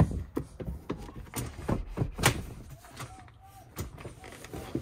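Clicks and knocks of hands handling a Jeep's rear seat and interior panels, an irregular string of short hits with the loudest a little over two seconds in.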